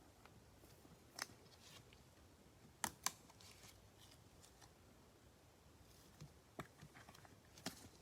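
Faint scattered clicks and taps of trading cards and packs being handled, with a sharp double click about three seconds in.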